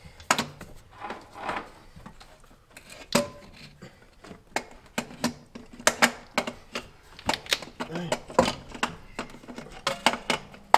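Irregular sharp metallic clinks and knocks of hand tools and metal parts being handled while a starter motor is fitted to a Subaru engine.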